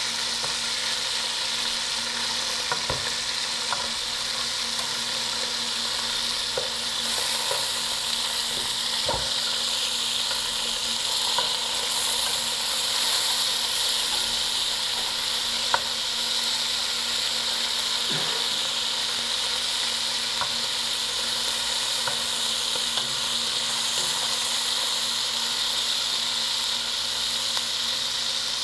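Chunks of homemade linguiça sausage sizzling as they pre-fry in fat in a metal pot, with a steady hiss. A metal spatula stirs them, now and then giving a short click or scrape against the pot.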